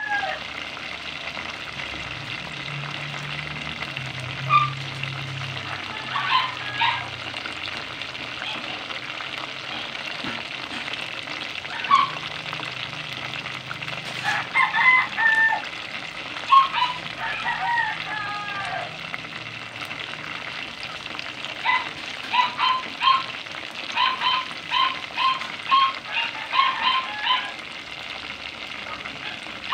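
Chicken pieces deep-frying in hot oil with a steady sizzle. Over it, chickens cluck in short calls, a few scattered at first and then a quick run of about two a second near the end.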